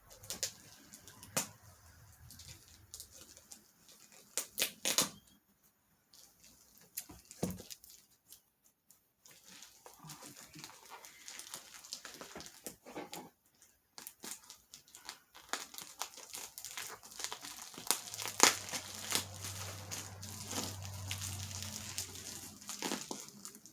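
Packaging being unwrapped by hand: crinkling and tearing in short irregular bursts, sparse at first and becoming a busier, more continuous rustle over the second half.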